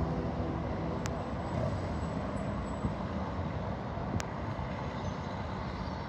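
Vehicle noise: a steady low rumble, with a sharp click about a second in and another about four seconds in.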